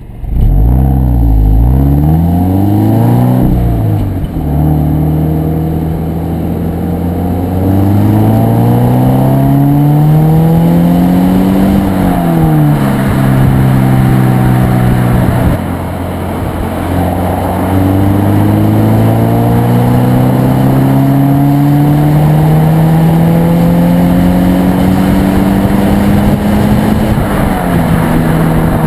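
Stock exhaust of a 2013 Subaru BRZ's 2.0-litre flat-four, heard right at the tailpipe, pulling through several accelerations. The engine note climbs steadily and drops back at each gear change, with a long slow climb through the second half, over road and wind noise.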